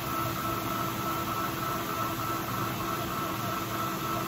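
Old manual engine lathe running steadily at speed, its three-jaw chuck spinning free before the cut: an even motor and gear hum with a steady high whine on top.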